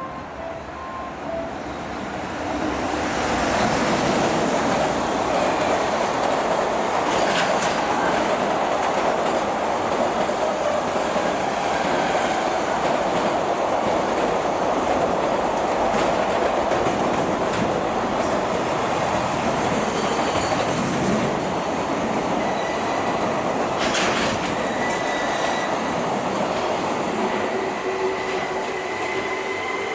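Electric commuter train running along the tracks: the rumble builds over the first few seconds and then holds steady, with wheels clattering over rail joints and a couple of sharp clicks. Near the end a motor whine rises in pitch as a train accelerates.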